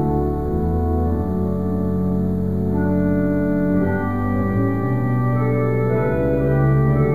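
Organ prelude: slow, sustained chords that change every second or two over low held notes.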